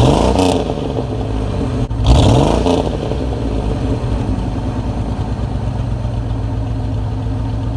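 An engine revved twice, about two seconds apart, then running at a steady idle.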